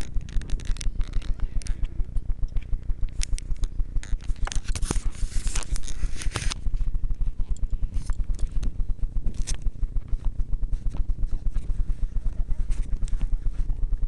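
A motorcycle engine idling with a steady, regular throbbing beat of several pulses a second. Scraping and rustling against the microphone come and go over it, heaviest from about four to six and a half seconds in.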